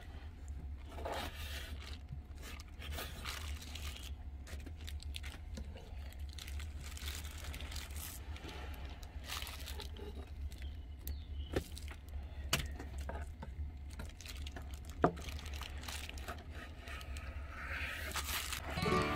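A kitchen knife scraping and slicing along raw fish fillets on a wooden cutting board, with the plastic over a work glove crinkling as the hand holds the fish. A few sharp knocks of the blade on the board, the loudest about 15 seconds in, over a steady low hum.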